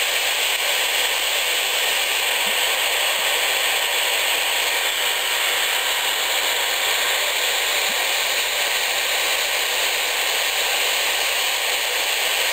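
Steady radio hiss from a Yaesu FT-817 receiver tuned to the noise that a toy walkie-talkie's superregenerative receiver radiates, strong enough to read S9 on the meter.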